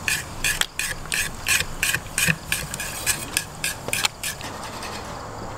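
Kitchen knife making quick, regular rasping strokes, about three a second, as it works on beef tripe; the strokes stop about four and a half seconds in.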